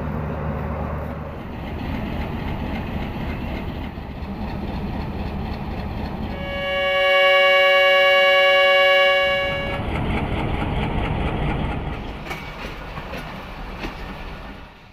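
Diesel passenger train running with rumble and wheel clatter, its locomotive's horn sounding one loud chord for about three seconds midway. The sound cuts off suddenly at the end.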